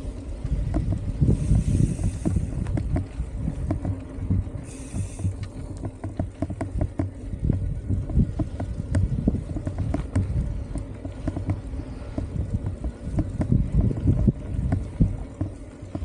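Mountain bike riding on a dirt trail: wind buffeting the microphone over a constant rumble, with frequent rattles and knocks from the bike.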